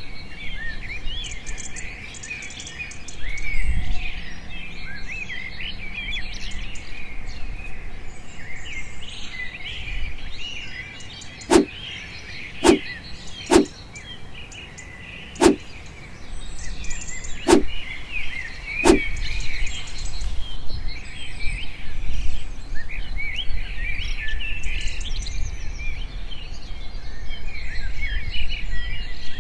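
Small birds chirping and calling continuously in the background, with six sharp knocks spaced one to two seconds apart midway through.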